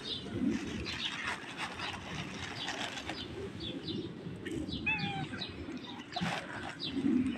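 Small birds chirping: short high chirps scattered throughout, with a brief pitched call about five seconds in.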